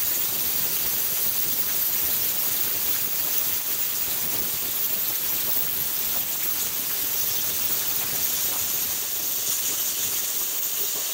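Vevor Cut 50P plasma cutter torch cutting through metal with its pilot-arc plasma arc: a steady, even hiss of compressed air blowing through the arc, with a squealing edge, held unbroken as the cut goes on.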